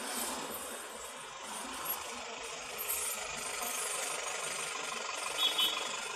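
Vehicle engines idling in stopped city traffic, a steady low rumble and hum. There are two brief louder sounds near the end.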